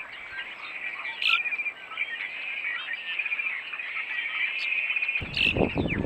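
Birds chirping steadily in a dense chorus, with a few sharp clicks. Low thumping rumbles come in during the last second and are louder than the birdsong.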